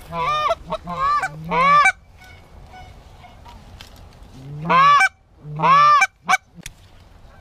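Loud, close Canada goose honks: a quick string of honks over the first two seconds, then two long drawn-out honks about five and six seconds in. A few sharp clicks follow near the end.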